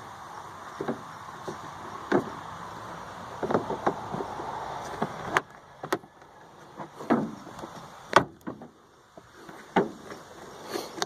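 A rubber grommet being pressed into the plastic housing of an S&B cold air intake: scattered clicks and knocks of plastic parts being handled, over a light rustle that fades about halfway through.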